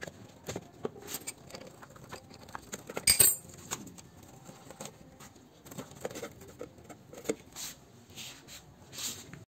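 Scattered small clicks, taps and scrapes of hands and a hand tool working on a scooter's rear brake arm and cable linkage, with a sharper clatter about three seconds in.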